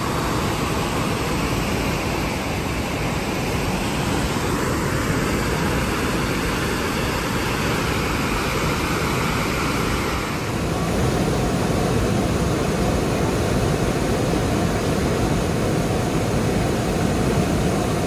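Loud, steady rush of a flood-swollen river pouring over a waterfall ledge into white-water rapids, raging after heavy rain. The noise shifts slightly in character about ten seconds in.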